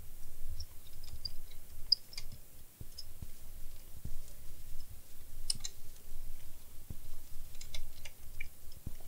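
Irregular small clicks and taps of plastic and metal as a laptop's case and screws are worked on by hand, over dull low handling knocks.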